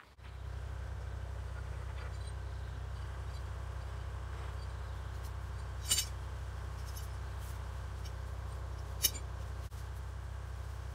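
Toyota Land Cruiser 80-series engine idling steadily, a low even hum, with two short sharp clicks about six and nine seconds in.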